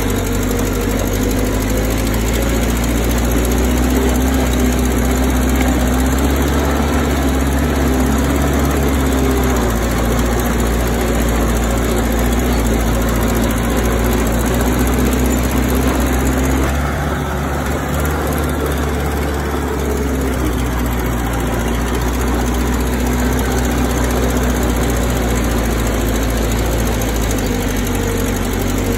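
Bulldozer's heavy diesel engine running steadily, its low note shifting slightly about a third of the way in and again just past the middle.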